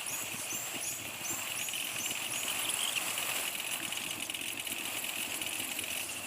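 Steady street and traffic noise heard from a bicycle, with a run of short high chirps, about three a second, in the first two and a half seconds.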